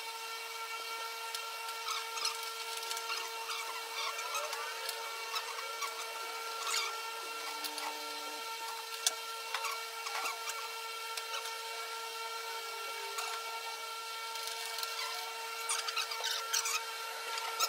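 Hand-work sounds: scattered faint clicks, taps and scraping, with a sharper click about nine seconds in, over a steady high hum.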